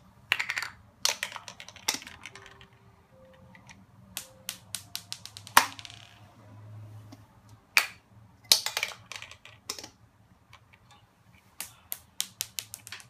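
Sharp plastic clicks and rattles as a small toy gumball machine is handled, with marbles knocking inside its clear plastic globe. The clicks come singly and in quick runs, the loudest single knock about halfway through.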